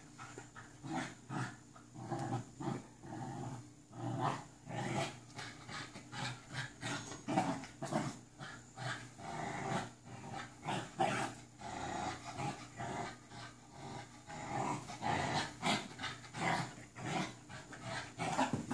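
American Bully puppy growling and panting in play while tugging on a toy, in short irregular bursts.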